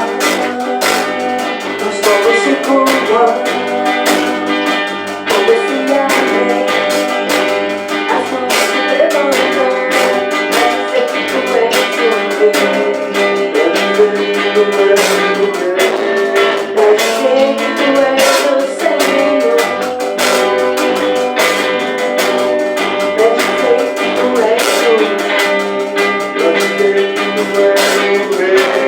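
A band playing an instrumental passage, with guitar prominent over a steady beat.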